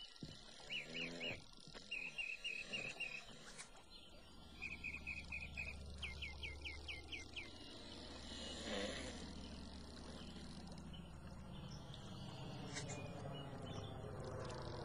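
A bird chirping in short runs of three to six quick high notes during the first half, then the low drone of an approaching twin-engine flying-boat water bomber, growing slowly louder toward the end.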